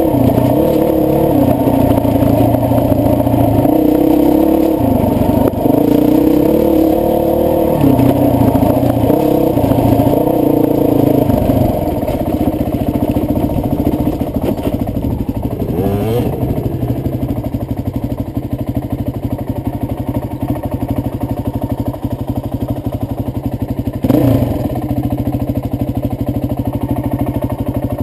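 Honda CRF450X's single-cylinder four-stroke engine running under load on a trail ride, the revs rising and falling with the throttle for the first dozen seconds, then running steadier and a little quieter with short blips of throttle later on.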